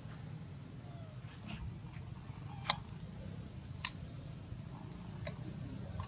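A short, high squeak about three seconds in, among a few sharp clicks of dry leaves and twigs under a macaque's feet, over a steady low hum.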